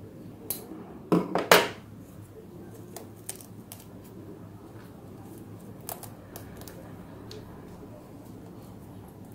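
Bonsai scissors snipping small rosemary shoots and twigs, with light scattered clicks. About a second in comes a louder cluster of three quick sharp strokes.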